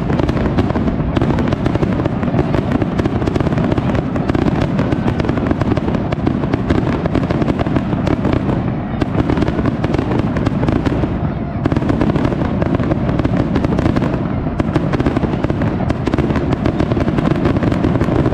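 Aerial fireworks display: a dense, continuous run of bangs and crackles over a heavy low rumble, with no break.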